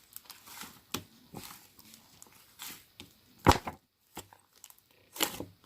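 Irregular clicks, knocks and rustling from something being handled, the loudest a sharp knock about three and a half seconds in and another near the end.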